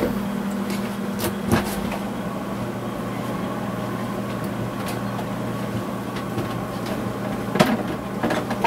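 Steady low mechanical hum with two constant tones, with a few sharp knocks of things being set down on the countertop near the start, about a second and a half in, and again near the end.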